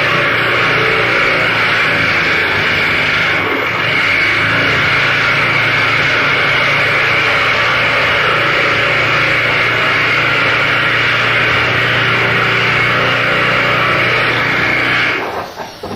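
Dense, loud harsh noise from a noise-music performance, with a steady low hum beneath it; about a second before the end it breaks up into choppy bursts.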